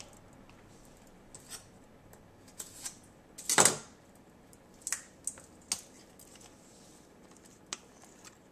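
Scattered light clicks and knocks of kitchen items being handled around a cooker pot. The loudest knock comes about three and a half seconds in, and a few sharper clicks follow a second or two later.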